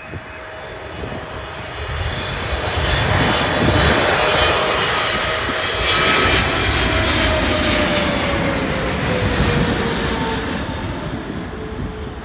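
Emirates Boeing 777 twin-engine jet airliner passing low overhead on landing approach. The engine noise swells, peaks in the middle and fades, and a whine falls in pitch as the plane goes past.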